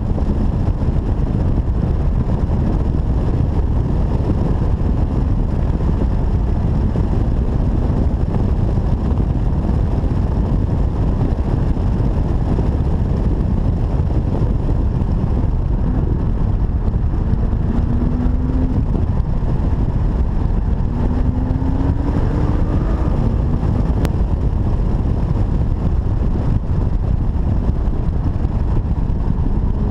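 BMW car on the move: steady road and wind noise, with the engine note rising through the revs a few times, around the middle and again near the end.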